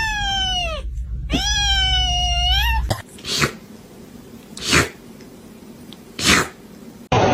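A kitten giving two long meows, the first falling in pitch and the second rising then dipping. These are followed by three short breathy puffs about a second and a half apart.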